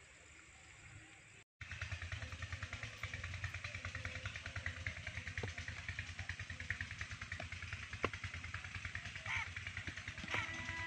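An engine running steadily with a fast, even pulse, starting about a second and a half in after a short break in the sound.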